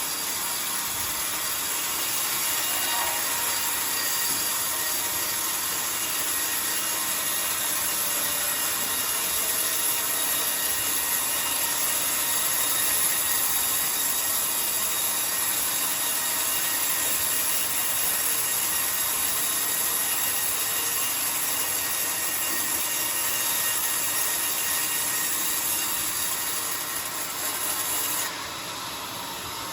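Sawmill band saw cutting through coconut-palm wood: a steady, hissing saw noise that runs on evenly and drops abruptly quieter near the end.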